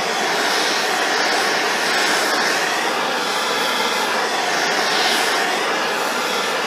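Gas blowtorch flame hissing steadily as it heats an aluminium alloy bottom yoke around the steel steering stem, warming it so the stem presses out without dragging aluminium with it.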